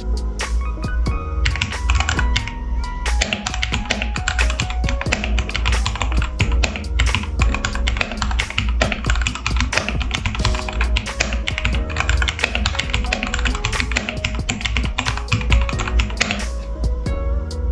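Fast, continuous typing on an RK G68 mechanical keyboard with unlubed Akko Starfish switches, modded with case foam, PE foam, tape and lubed, clipped stabilizers: a dense run of keystroke clicks. Background music plays under it.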